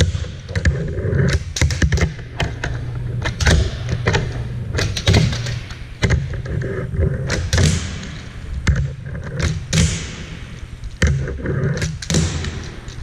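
Hangnail handboard knocking and clacking against a plywood ramp as it is flipped and landed by hand: many sharp knocks at uneven intervals over a low rumble from its wheels rolling.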